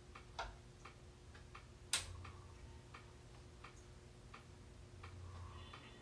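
Ceiling fan ticking steadily, about three light ticks a second, over a faint hum, with one louder sharp click about two seconds in.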